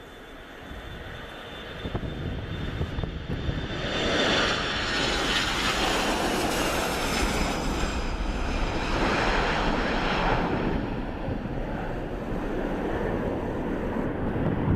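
Airliner's engines passing close, building over the first few seconds into a loud rushing roar with a high whine, staying loud for the rest of the stretch.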